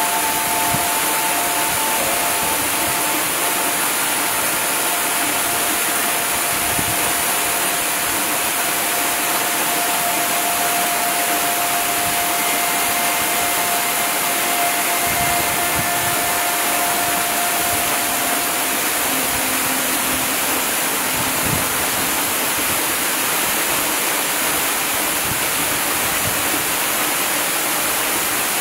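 A steady, even rushing noise like falling water, with a few faint held tones that fade away about two thirds of the way through.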